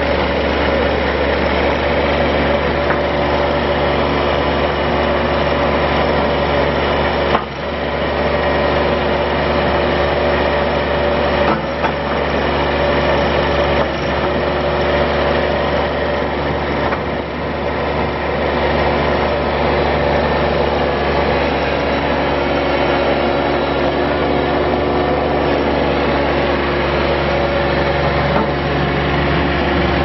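Toro TX525 Dingo mini skid steer's Kubota three-cylinder diesel running steadily while the machine lifts its loader arms and tracks across concrete, with two brief dips about a third of the way in.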